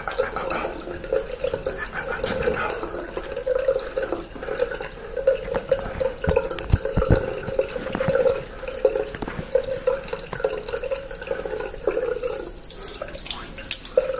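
Water running from a sink tap, with splashing as hands rinse shaving lather from the face.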